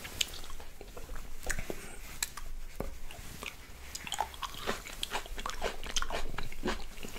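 Red grapes being bitten and chewed close to a microphone: irregular short wet clicks and crunches as the grapes are eaten.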